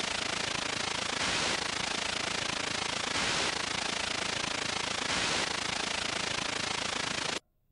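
Steady hiss like static or white noise, with faint swells about every two seconds, cutting off abruptly near the end.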